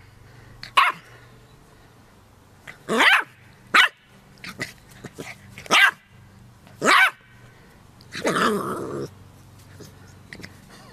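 Puppy yapping at a dandelion seed head: about six short, high barks at uneven gaps. The last bark, near the end, is longer and rougher.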